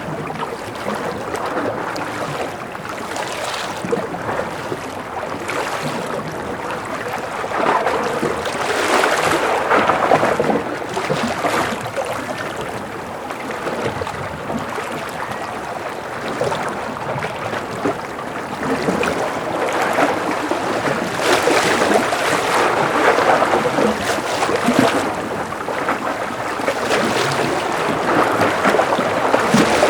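Gentle ocean waves washing and lapping against a breakwater, the wash swelling and easing every few seconds.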